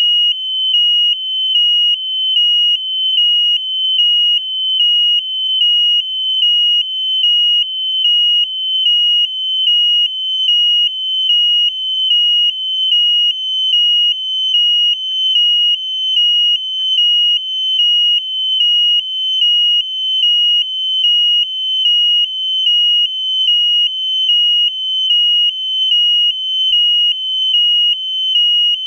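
Electronic piezo buzzer on a high-altitude balloon payload, beeping loud and high-pitched with a near-continuous tone that pulses about once a second.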